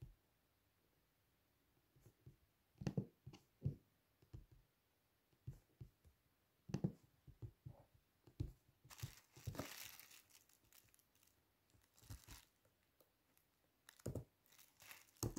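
Faint, scattered handling noises: soft knocks and taps, with a brief crinkling rustle about nine seconds in.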